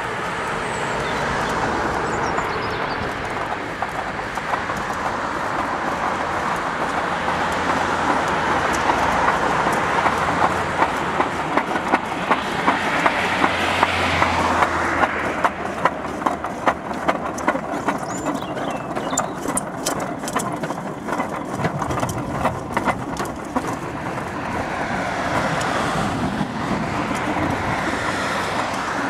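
Homemade rail bike rolling along rusty railway rails: a steady rumble of its small guide wheels on the steel, with a rhythmic clicking of about two clicks a second through the middle stretch.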